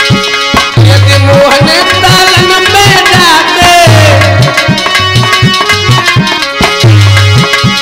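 Live Krishna bhajan: a male voice sings a long, wavering line over harmonium, driven by a fast, steady hand-drum beat with deep bass strokes.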